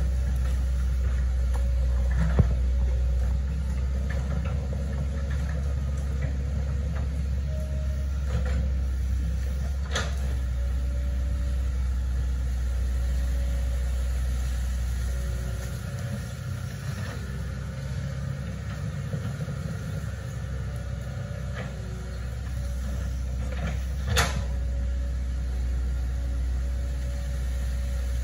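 Hitachi ZaXis 110 excavator's diesel engine running steadily with a low rumble. A few sharp knocks sound over it, one about two seconds in and the loudest near the end.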